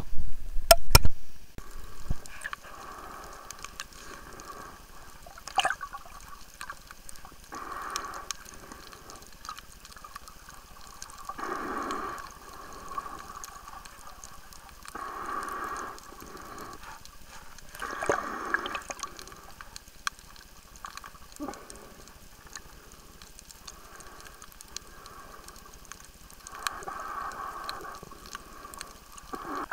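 Water sloshing and gurgling in irregular patches every few seconds, over a steady hiss, with a few loud knocks in the first second.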